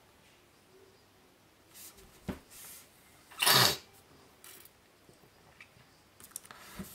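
A person's single short, sharp exhale through the nose about three and a half seconds in, against a quiet room, with a faint click a second before it.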